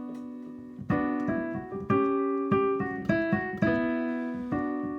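Slow piano music: chords and single notes struck every half second to a second, each left to ring and fade.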